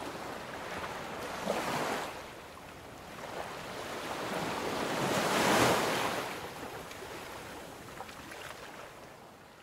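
Lakeshore wind and waves: an even noise of wind and water that swells to its loudest about halfway through, then fades out near the end.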